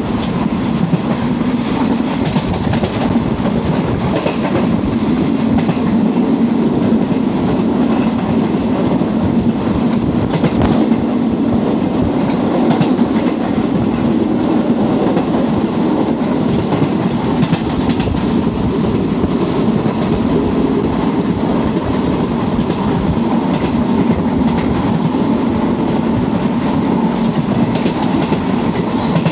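Moving passenger train heard from on board: a steady, loud rumble of the coach running along the track, with the wheels clicking over rail joints now and then.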